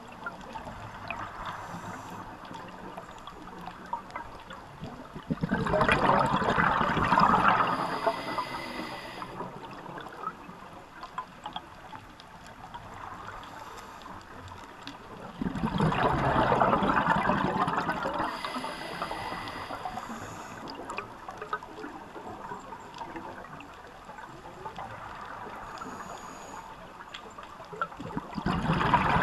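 Scuba diver breathing through a regulator underwater: three long, bubbly exhalations about ten seconds apart, each lasting about three seconds, the last starting near the end, with a quieter steady background between them.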